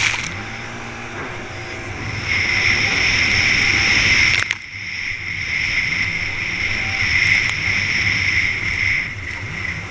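Racing jet ski running hard across choppy water, its engine and jet pump whining high and steady with spray and wind noise. The hull slams on waves near the start and about four and a half seconds in, after which the sound drops away sharply for a moment before picking up again.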